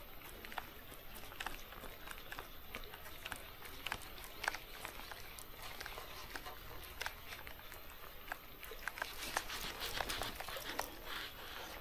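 Raindrops ticking irregularly on a rain jacket and the camera, over a faint steady hiss of rain.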